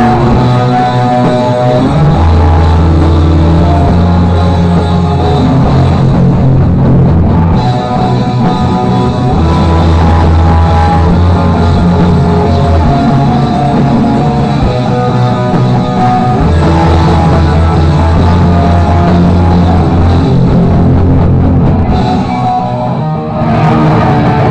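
Live rock band playing loudly: electric guitar, bass and drums, heard from within the crowd, with a brief drop in level near the end.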